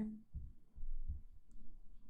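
A few soft, irregularly spaced low thumps with a faint click, just after a woman's voice trails off.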